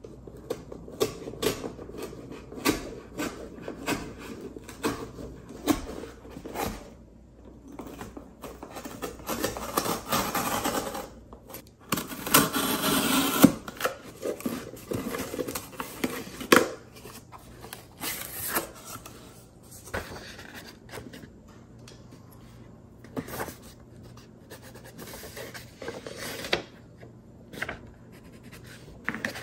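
Retractable utility knife cutting through a corrugated cardboard box: scraping, rasping strokes of the blade mixed with sharp clicks and handling knocks, loudest about halfway through. Later come lighter scratches and taps.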